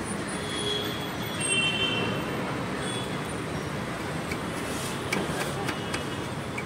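Steady street traffic noise, with a faint high squeal about a second in and a few light knife taps on a plate near the end.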